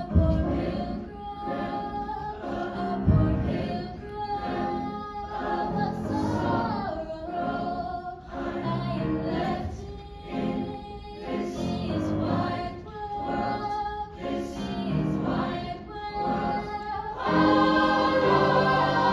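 Mixed-voice choir singing in parts, swelling to a fuller, louder passage about two seconds before the end. A low thud sounds just after the start and another about three seconds in.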